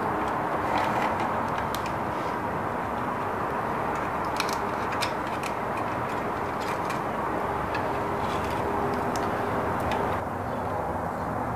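Scattered light clicks and ticks of a wire being handled and fed through a coffee grinder's opened plastic housing, over a steady background rush that drops a little near the end.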